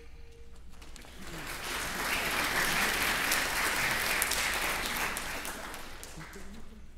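Audience applause after a saxophone quartet's held final note dies away: the clapping swells about a second in, holds, then thins out and fades near the end.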